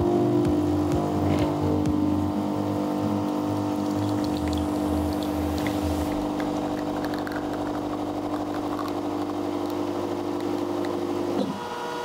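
Commercial bean-to-cup espresso machine running steadily as it pumps an espresso shot into the cup. A lower hum under it stops about halfway, and the machine cuts off shortly before the end.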